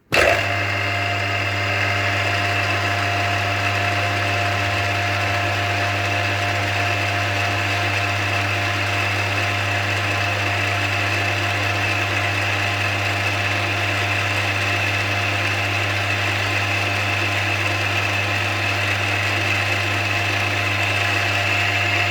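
Small milling machine spindle running at its fastest speed with a small end mill, pecking into a snapped steel screw: a steady motor hum with a high whine, starting suddenly right at the beginning.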